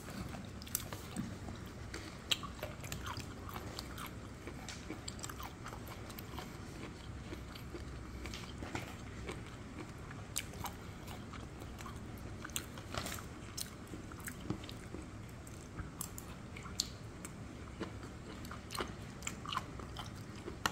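A person chewing and eating close to the microphone, with many small scattered mouth clicks and crunches.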